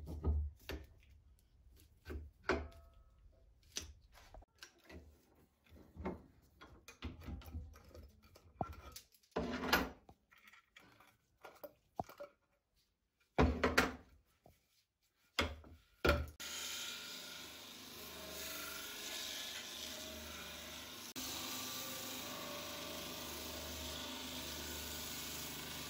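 Knocks and clicks of a wooden beam and steel C-clamps being handled and tightened on a workbench. About sixteen seconds in, an electric belt grinder switches on and runs steadily, with a slight rise in sound about five seconds later.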